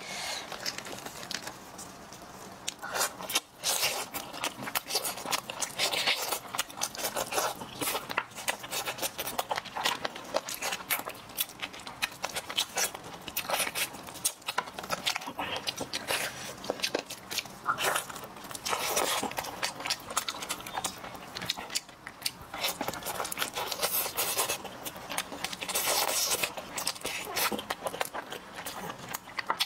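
Close-miked eating sounds of steamed whole chicken: wet chewing, lip smacking and finger sucking, with the meat torn apart by hand. It comes as an irregular run of short wet clicks and smacks.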